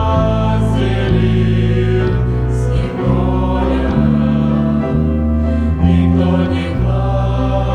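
Choir singing a Christian song over instrumental accompaniment, with sustained chords whose bass notes change about once a second.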